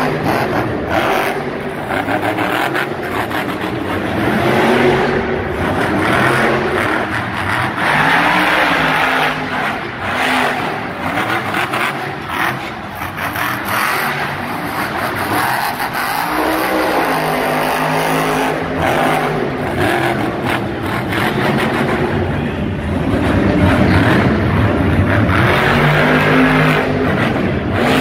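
Monster truck's supercharged V8 engine revving up and easing off again and again during freestyle driving on dirt, loudest in the last few seconds as the truck rears onto its back wheels.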